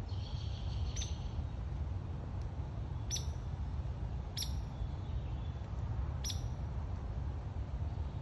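Downy woodpecker giving four short, sharp pik calls spaced one to two seconds apart, over a steady low rumble.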